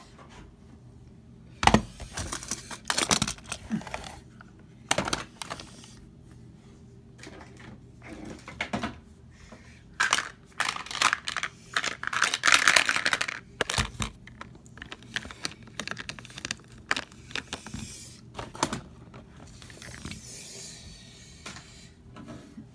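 Handling noise: irregular clicks and knocks with bursts of rustling, the longest and loudest rustling about twelve to thirteen seconds in.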